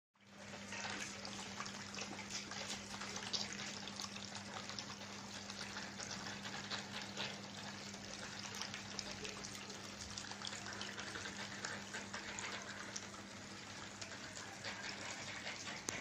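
Small tabletop waterfall fountain running: water trickling and splashing down its cement rock steps into the pool, a steady, even patter. Under it runs a steady low hum from the fountain's small water pump.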